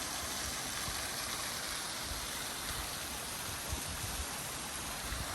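Steady rushing water of a waterfall, a constant even roar.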